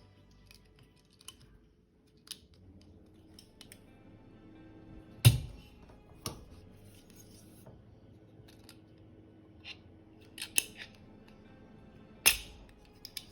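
Sharp metallic clicks and snaps of AR-15 lower receiver parts being worked by hand, scattered and irregular, with the loudest about five seconds in and another strong one near the end.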